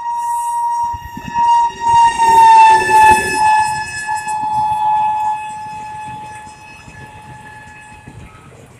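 Electric locomotive's horn sounding one long steady blast as the train passes at speed, its pitch dropping a few seconds in as the locomotive goes by. Wheels clatter over the rails beneath it, and the horn fades away near the end as the coaches roll past.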